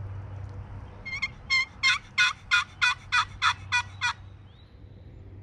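A series of about ten turkey yelps, roughly three a second, starting about a second in, the first few softer and the rest louder.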